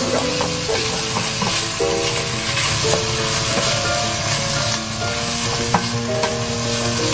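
Sliced pork loin sizzling in a hot frying pan as a wooden spatula stirs and turns it, with scattered light clicks and scrapes of the spatula against the pan.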